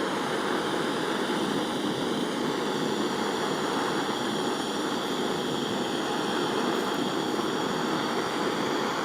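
Gas soldering torch flame burning with a steady, even hiss, heating a silver jewellery setting to run the solder along its seam.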